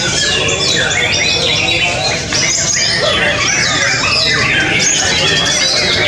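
White-rumped shamas (murai batu) singing in their cages: a dense, unbroken run of fast whistled phrases that slide up and down in pitch, several phrases overlapping at once.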